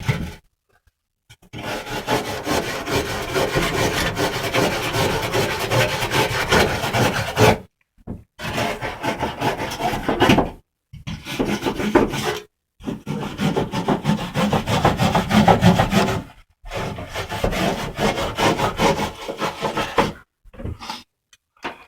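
Rasping, rubbing noise in five long stretches, each cutting off abruptly into silence.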